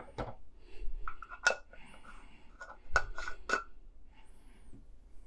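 A scattering of sharp clicks and knocks of kitchen utensils and containers being handled, loudest about a second and a half and three seconds in.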